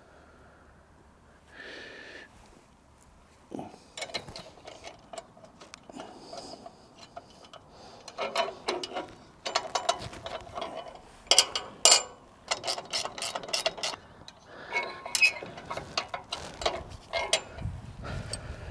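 Small metal clicks and clinks of hand tools and a nut and bolt being fitted to a battery terminal, sparse at first and then busy, with runs of quick ticking like a ratchet spanner.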